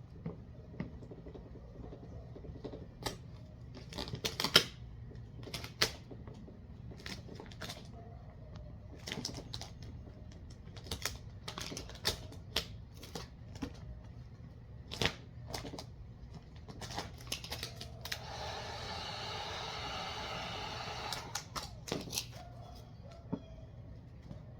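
Vinyl wrap film being handled and smoothed onto a car bumper: scattered sharp clicks and crackles of the film and squeegee, over a low steady hum. About two-thirds of the way in comes a steady rasping hiss lasting about three seconds.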